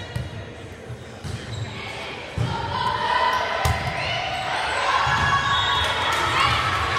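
Indoor volleyball game in a gym hall: sharp knocks of the ball being hit and bouncing, with players' voices rising into loud calls and shouts about two and a half seconds in.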